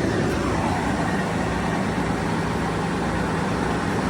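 Cable puller's engine running steadily while slowly pulling cable through the duct.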